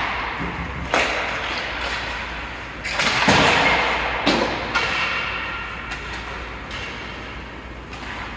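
Ice hockey play in a rink: about five sharp knocks of puck and sticks against the boards, over a scraping hiss of skates on the ice that is loudest a little after three seconds in.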